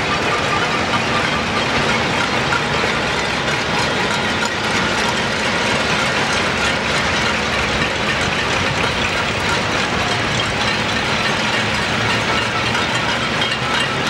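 Cacerolazo: many pots and pans being banged across the city at once, merging into a dense, continuous metallic clatter.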